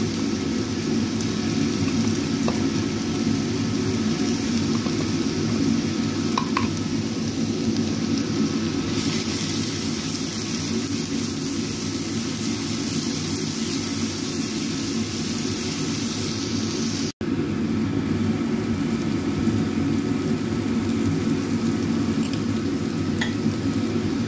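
Ground shallot, garlic and chili paste sizzling as it fries in oil in a pan, stirred with a spatula. The sound cuts out for an instant about two-thirds of the way through.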